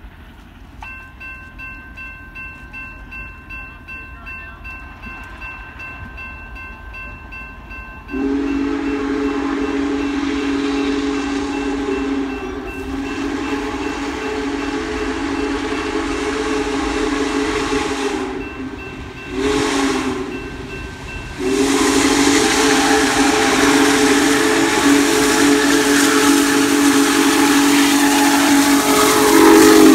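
Railroad crossing bells start ringing, then the whistle of Union Pacific Big Boy 4014, a steam locomotive, blows the crossing signal loudly: two long blasts, a short one and a final long blast as the locomotive reaches the crossing.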